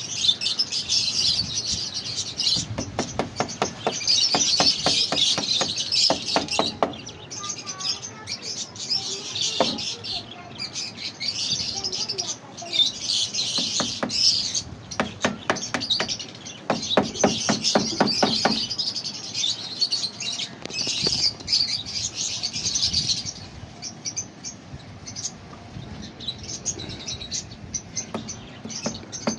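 Hammer tapping on a wooden frame as wire mesh is fastened to it, in several quick runs of light strikes at about three a second. Birds chirp continuously behind it and fade out near the end.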